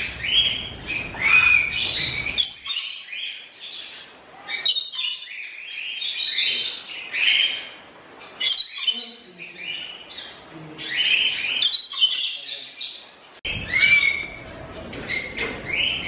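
Parrots squawking and whistling in a busy run of calls: short squawks mixed with whistles that rise and fall.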